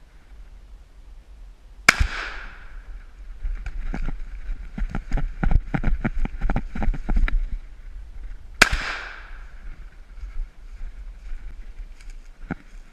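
Two shotgun shots about seven seconds apart, each a sharp report with a trailing echo. Between them comes a run of rapid, quieter knocks and crackles.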